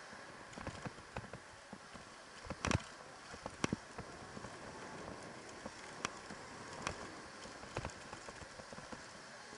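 Electric dirt bike rolling over a bumpy dirt track: irregular knocks and rattles from the bike as it hits the bumps, the loudest pair a little under three and four seconds in, over a steady low hiss.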